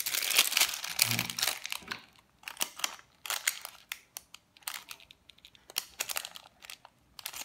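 A thicker plastic bag crinkling as it is handled and clamped into a small handheld heat sealer. The crinkling is densest in the first two seconds, then comes in short, irregular rustles.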